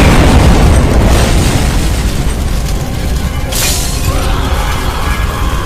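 A loud boom that rumbles on with a heavy low end and slowly fades, under music, with a second short burst of noise about three and a half seconds in.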